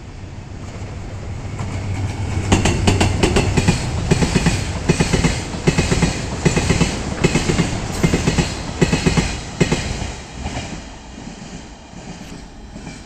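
DF200 diesel-electric locomotive passing with a train of empty tank wagons. The engine's low hum builds over the first couple of seconds, then the wheels clack over the rail joints in quick repeating groups as the wagons go by, fading near the end.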